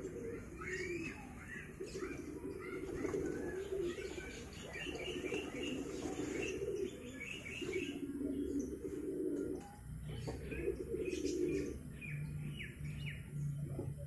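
Domestic fancy pigeons cooing in a loft, in repeated low phrases, with deeper coos in the last few seconds. Small birds chirp over the top, mostly in the first half.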